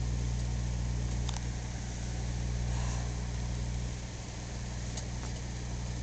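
Microwave oven running with a steady low hum, with a few sharp crackles about a second in and near the end from a plastic barricade light sizzling inside as its electronics burn.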